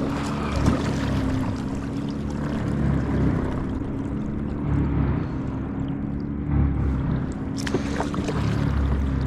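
Kayak under way while trolling: a steady low hum from its drive that swells and fades every second or two, over a light hiss. A single sharp click about seven and a half seconds in.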